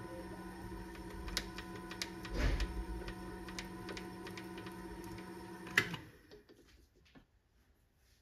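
Paulimot PM190-V mini lathe running without cutting: a steady motor and gear hum with light ticks every so often. A sharp click comes just before six seconds in, and the lathe stops and goes quiet.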